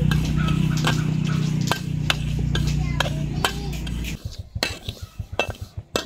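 Metal spatula scraping and clinking against a steel wok while dry-roasting black sesame seeds, a sharp stroke roughly every half second. A low steady hum runs underneath and stops about four seconds in.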